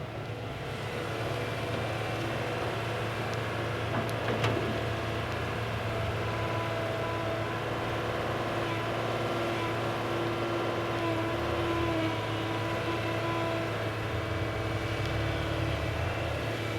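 Excavator running steadily: a low motor drone with whining tones that shift a little in pitch, and one short knock about four seconds in.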